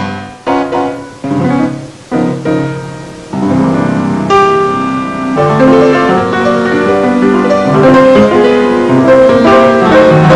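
Grand piano played alone: a few separate chords struck and left to ring, then, about three seconds in, a steady flowing passage of chords and melodic runs.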